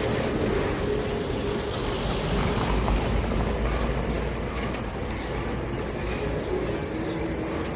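Street traffic noise: a small car drives past close by, its engine and tyres rumbling on the cobblestones, with a faint steady whine coming in near the end.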